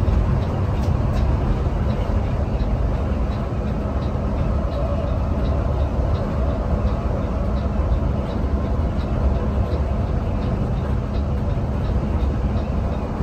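Steady low rumble of a Mercedes-Benz OH 1626 coach's diesel engine and tyres at cruising speed, heard inside the cabin, with a faint regular ticking about twice a second.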